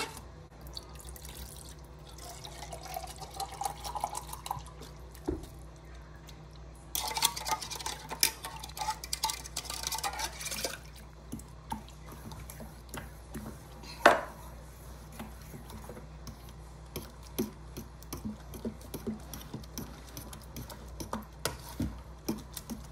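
A metal fork stirring and sloshing grated pineapple in coconut milk in a large bowl, with small clinks of the fork against the bowl. There is a spell of faster, splashier stirring about a third of the way in, and one sharp clink a little past the middle is the loudest sound.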